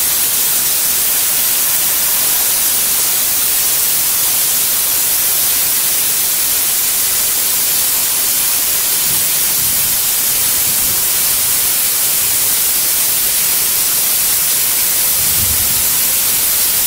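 Handheld plasma cutter's arc hissing steadily as the torch cuts through a metal sheet.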